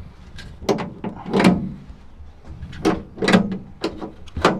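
Van door lock mechanism being worked by hand: the key cylinder and latch levers snap over in a series of sharp clacks, about seven, in uneven groups.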